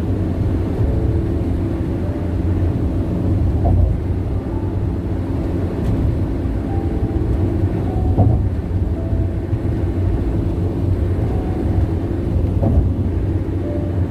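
Loud tyre noise from a car driving on a highway: a steady low rumble with brief knocks about 4, 8 and 13 seconds in.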